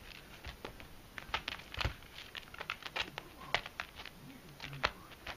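A kitten's claws and paws scratching and tapping on a tatami mat as it rolls and grabs at its own tail: a quick, irregular run of small scratches and taps.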